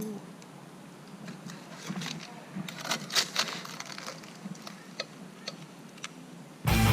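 Scattered light clicks, knocks and scrapes, a few of them sharper around the middle. Then strummed guitar music starts suddenly just before the end.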